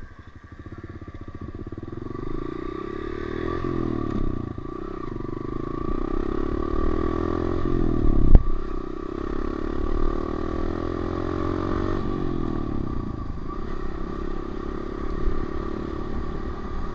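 Honda CRF125F's single-cylinder four-stroke dirt bike engine under way, its revs climbing and dropping several times through the gears. A sharp knock about eight seconds in is the loudest moment.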